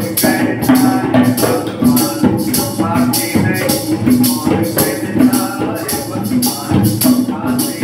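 Live hand percussion: a set of conga drums played with the hands in a steady rhythm, with a hand shaker rattling along several times a second.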